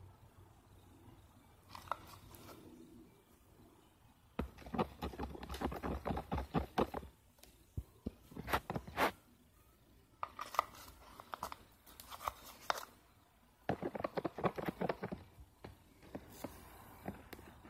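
Sticky crackling squelches of white glue being squeezed and worked with a stick while making slime, in four bursts of a second to three seconds each.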